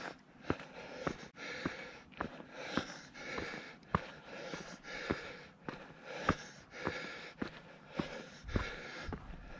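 A hiker's footsteps on bare rock, sharp knocks at about two steps a second, with loud rhythmic breathing in and out between them.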